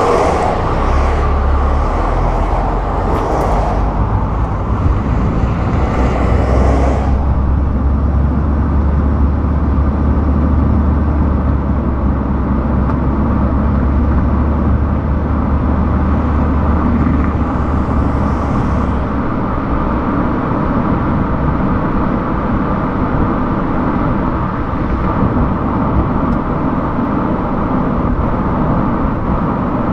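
Car travelling on a highway: steady road and engine noise, with a rushing hiss over the first several seconds and a low drone that fades away a little past halfway.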